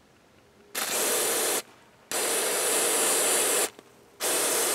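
Aerosol can of carburetor cleaner sprayed in three hissing bursts onto the oily front of an engine to wash the oil off, the middle burst the longest.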